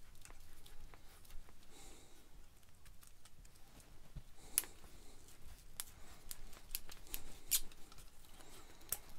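Small screwdriver prying and scraping at an old lamp switch as it is taken apart, making a string of sharp little clicks and ticks, the loudest about halfway through and again a few seconds later.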